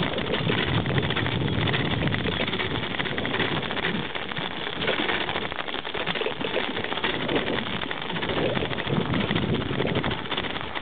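Bicycle riding along a snow-covered path: a steady rushing and rumbling noise of wind on the microphone and the tyres rolling.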